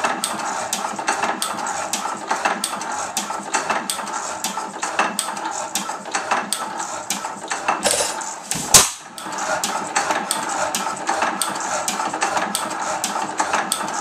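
1903 5 HP Fairbanks Morse Type N hit-and-miss gasoline engine running, with a steady rhythmic metallic clatter a few times a second. One louder bang comes about nine seconds in.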